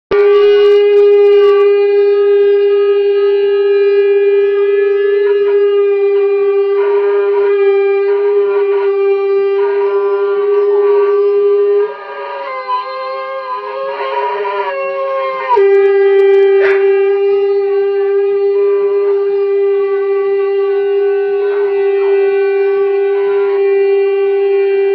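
Two shofars blown together in one long unbroken blast, a steady horn note held throughout. A little after halfway, for about three seconds, the note drops quieter and a higher, wavering horn pitch sounds over it. Then the full steady note returns.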